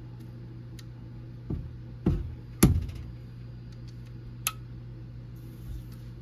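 Homemade metal side-lever breech on a .22 Crosman PCP air gun being worked by hand. Three sharp metallic clacks come in quick succession, the third the loudest, then a single lighter click with a short ring. A steady low hum runs underneath.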